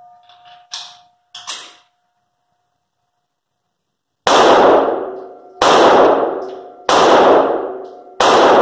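Smith & Wesson M&P Shield EZ 9mm pistol fired four times at an even pace, about one shot every 1.3 seconds, each report ringing out with a long echo in an enclosed indoor range. A couple of short clicks come before the shots.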